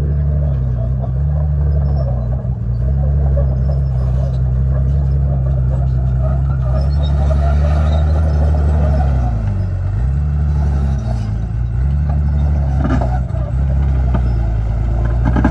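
Komatsu D51PX bulldozer's diesel engine running hard, its pitch sagging and recovering several times as it takes load, with a steady rattle over it.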